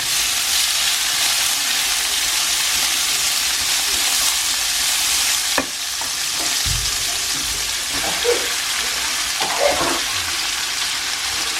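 Chopped onions sizzling steadily as they fry in a hot pan, stirred now and then, with a sharp tap about halfway through.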